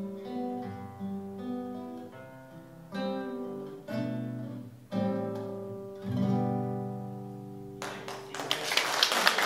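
Acoustic guitar played solo: picked notes, then a few chords strummed about a second apart, the last one left to ring. Near the end a dense patter of applause comes in and is louder than the guitar.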